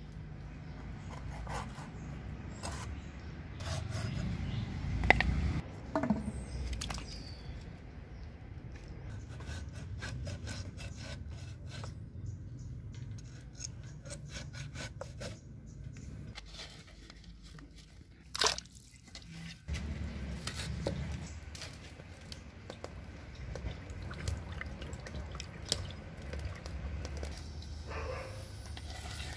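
Dried fish being cut on a curved iron blade fixed to a wooden board: scattered knocks, cracks and scrapes as the hard fish is pushed through the blade, with a sharper crack about five seconds in, over a low steady rumble.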